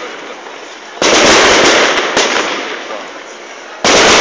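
Fireworks bursting overhead: two sudden loud bangs, about a second in and near the end, each dying away over a couple of seconds.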